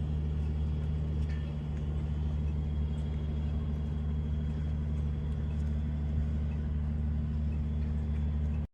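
A steady low mechanical hum, engine-like, with a few faint scattered ticks; it cuts off suddenly near the end.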